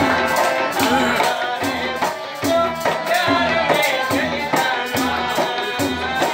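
Tabla played in a lively dance rhythm, the deep bass drum struck about twice a second, with a wavering melody over it.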